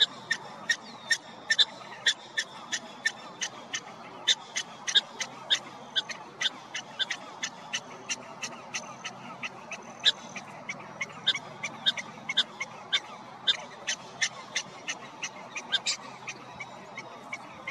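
Prairie dog barking: a long, even series of short, high chirps, about two to three a second, over a faint steady background hiss.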